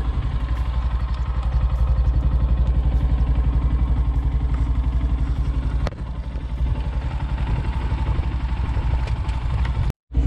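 Yamaha FZS motorcycle's single-cylinder engine idling steadily, with a brief dip about six seconds in and a short cut-out near the end.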